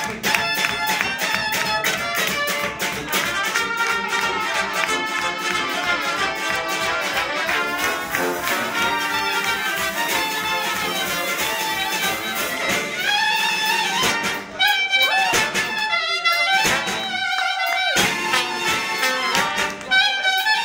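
Live brass band (sousaphone, trombone, trumpet, saxophones, electric guitar and drum kit) playing a tarantella with a steady quick beat. About two-thirds of the way through the drums and low end drop out and the horns play short phrases broken by brief gaps.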